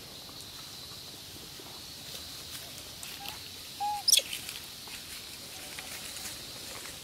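A short, sharp, high squeak about four seconds in, just after a brief lower whistle, the loudest sound here. Faint taps and rustles in dry leaf litter over a steady high hiss.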